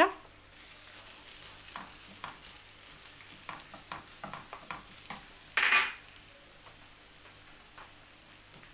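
Minced meat (kefta) being pushed around a frying pan of onion and pepper with a wooden spoon: soft scrapes and taps over a faint sizzle, with one brief louder scrape a little after halfway.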